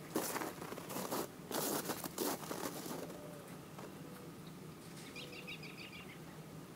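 Footsteps crunching on packed snow, stopping about three seconds in. About five seconds in, a bird gives a brief, quick run of high chirps.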